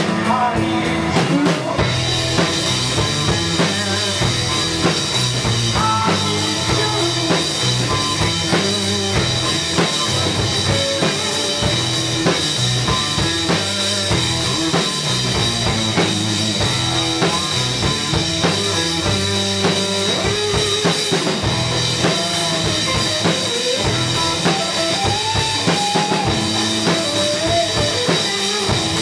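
Rock band playing live: electric guitar over a drum kit, loud and continuous.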